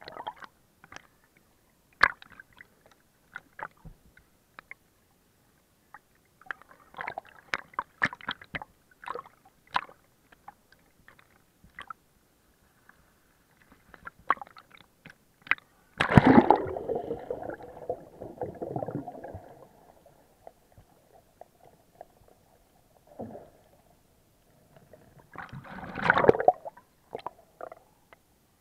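Water sloshing and gurgling around a camera held in the sea at and just below the surface, with scattered crackles and clicks. About sixteen seconds in a loud rush of water comes and tails off over a few seconds, and a second burst follows near the end.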